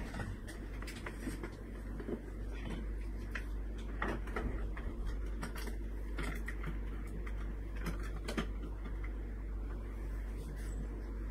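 Scattered light clicks and taps at irregular intervals over a steady low electrical hum.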